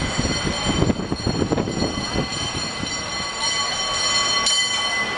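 San Francisco cable car line on Powell Street: a steady, high-pitched metallic squeal of several tones from the cable car's wheels and cable, over the rumble of street traffic, with a sharp click near the end.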